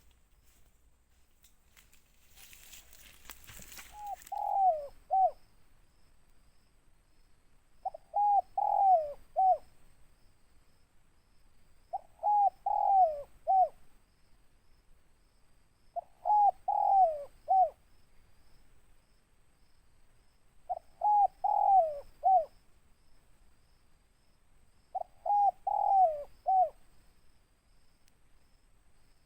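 Spotted dove (tekukur) cooing: a deep phrase of three or four notes, repeated six times about every four seconds. A brief rustling noise comes just before the first phrase.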